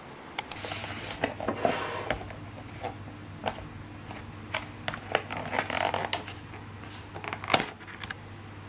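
Hands handling a clear plastic food container and a ceramic plate: scattered clicks, crinkles and light taps, the loudest tap near the end, over a faint steady low hum.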